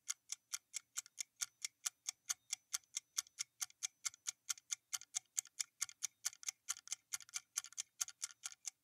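Clock-ticking sound effect of a quiz countdown timer: quiet, even ticks, about four a second, marking the time given to answer.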